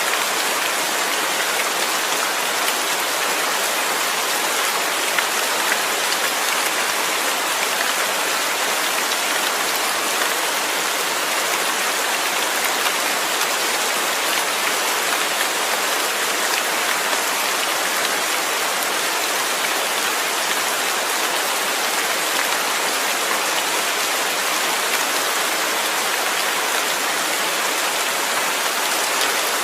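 Steady rain falling, an even hiss of many drops on a surface.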